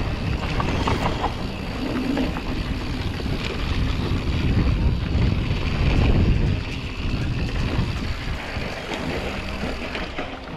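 Mountain bike rolling fast down a dry dirt trail: tyres rumbling over dirt and wind rushing over the bike-mounted microphone. The noise is heaviest around six seconds in and eases after.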